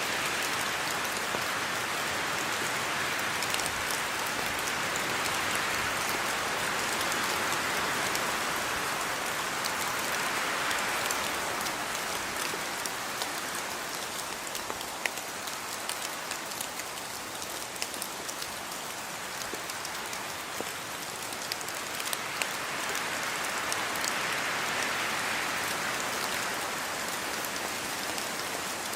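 Steady rainfall, an even hiss of drops hitting surfaces with scattered sharper drip ticks, swelling and easing gently over several seconds.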